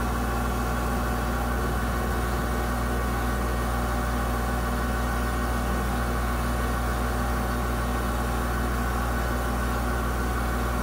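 Engine running steadily at an even speed, a constant low drone that does not rise or fall.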